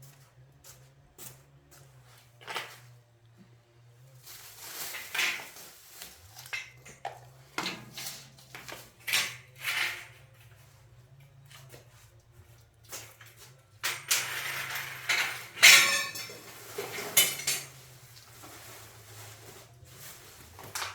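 Hard metal objects clinking and clattering as they are handled, in irregular bursts, with a louder run of clatter about two-thirds of the way through.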